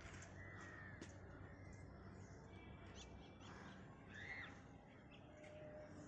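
Faint crow caws, the clearest about four seconds in, over low steady background noise.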